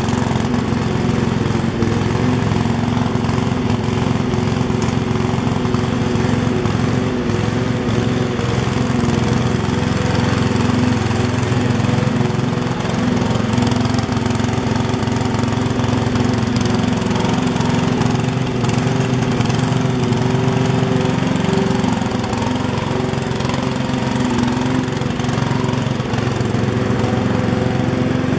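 MTD lawn tractor's engine running at a steady speed while the tractor is driven along.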